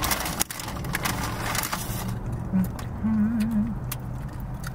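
Close-up chewing of a burrito bite with tortilla chips crunching in it, a burst of crisp crunches in the first couple of seconds. About three seconds in comes a short hummed 'mmm', all over a low steady hum in the car cabin.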